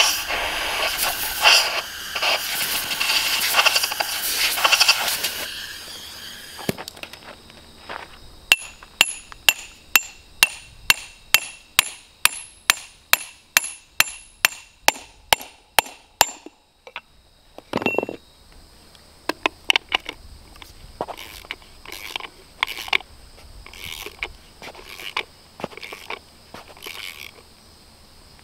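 Compressed air from an air hose blowing concrete dust out of a drilled anchor hole, a loud hiss that stops about five seconds in. Then a steel hammer drives an anchor bolt down through a 6x6 sill plate, sharp ringing blows about two a second for some eight seconds. After that a ratchet wrench clicks as the nut is tightened.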